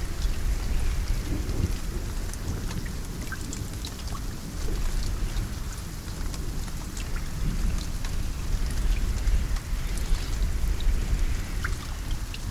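Steady rain with scattered drop ticks over a low rumble of distant thunder that swells and fades.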